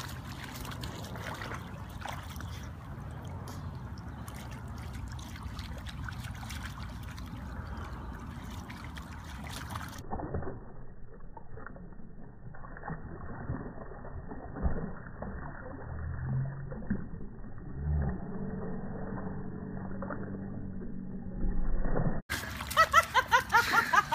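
Siberian huskies splashing and wading in shallow floodwater on a lawn, with a low steady rumble under it. Near the end, a loud, quick run of rhythmic vocal sounds close to the microphone.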